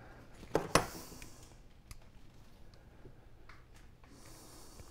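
Sash cord being handled and pulled at the wooden window jamb: two sharp clicks about half a second in, then faint rustling and light ticks.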